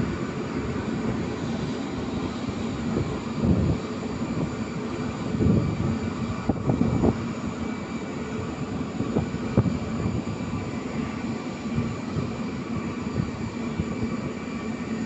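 Twin-engine jet airliner's engines running steadily as it rolls along the runway, with a few short low bumps between about three and ten seconds in.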